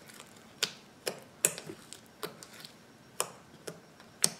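Fingers poking and squeezing a bubbly homemade slime in a plastic tub, making a string of sharp, irregularly spaced clicks and pops as trapped air bubbles burst.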